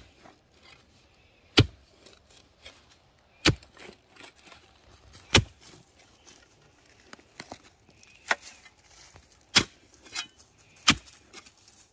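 Manual clamshell post hole digger jabbed down into the soil, its steel blades striking the ground with a sharp thud every one to two seconds.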